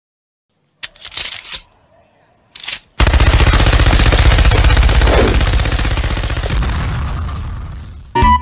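Machine-gun sound effect: rapid automatic fire starting about three seconds in and running for about five seconds, slowly fading away near the end. Two short bursts of noise come before it.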